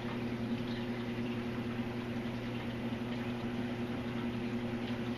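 Steady low hum of reef aquarium pumps, with a constant wash of circulating, bubbling water.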